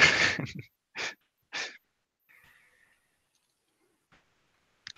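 A man's breathy laugh close to a headset microphone: a loud rush of breath, then two short puffs of breath about a second in.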